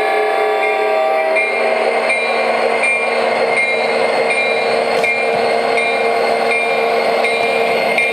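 Several MTH model locomotives' sound systems sounding their horns at once in a steady, held chord, with a short high tone repeating about every two-thirds of a second. About one and a half seconds in, the chord shifts and a hissing running noise rises under it. The horns are sounding because the four-engine consist was set up wrong.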